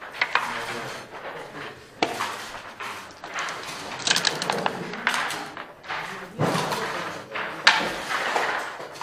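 Backgammon dice and checkers clacking on the board during play, irregular sharp clicks about once a second, some followed by a short rattle.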